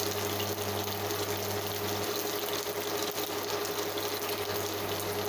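Steady, unchanging hiss with a constant low hum underneath, like a running kitchen appliance.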